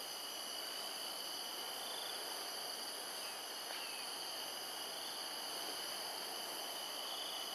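Steady insect chorus: several high-pitched tones held without a break over a soft hiss, with a couple of faint short chirps near the middle.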